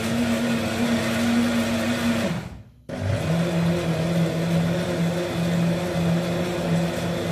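Electric blender grinding sprouted wheat for samanak, its motor running steadily. It cuts out about two and a half seconds in, starts again half a second later, and runs on at a lower hum.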